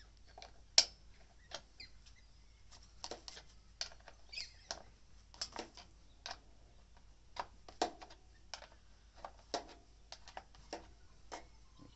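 Scattered light clicks and knocks, about one or two a second, the sharpest about a second in, from gloved hands working the bar-clamp knobs and side cover of a Ryobi 50cc two-stroke petrol chainsaw, loosening the chain after use so it does not stretch as it cools.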